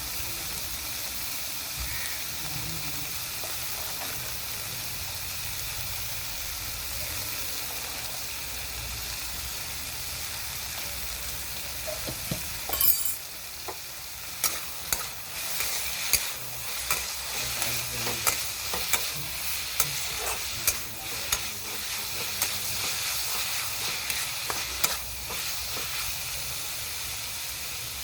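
Food sizzling as it fries in oil in a pan. About halfway through, a spatula starts stirring and knocking against the pan: repeated sharp clicks and scrapes over the sizzle.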